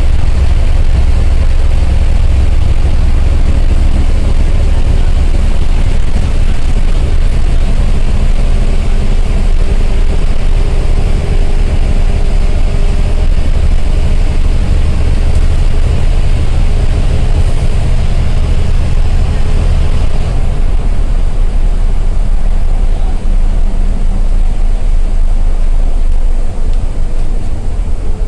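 Ashok Leyland bus engine and road noise heard from inside the cabin while driving: a loud, steady low drone with a faint whine that slowly shifts in pitch. The upper hiss eases off about twenty seconds in.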